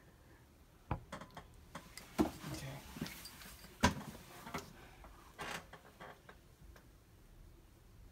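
Scattered small clicks and knocks of handling: a phone being set down and makeup products picked up. The sharpest taps fall about one, two and four seconds in.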